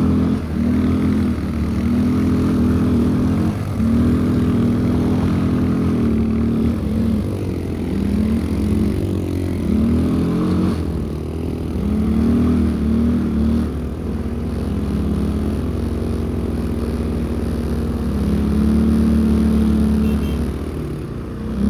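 ATV engine running under changing throttle, its revs rising and falling again and again. The machine is new and still in its break-in period.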